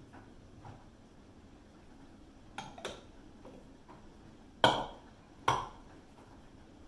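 Kitchen bowls clinking: two light taps, then two sharp knocks a little under a second apart as a small red bowl is set down into a clear dish on the table.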